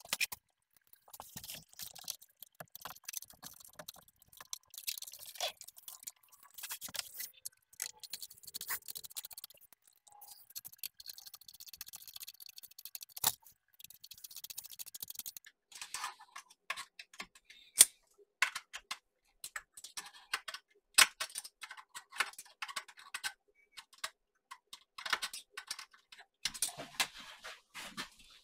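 Irregular small clicks, taps and scrapes of hands handling the metal Snapmaker 2.0 dual extrusion module as it is bolted onto the printer's linear module, with a few sharper clicks.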